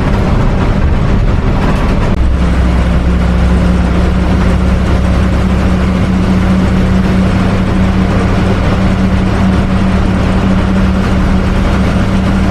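Interior of a travelling bus: the engine and road noise drone steadily, heard from inside the cabin, with the low rumble deepening about two seconds in.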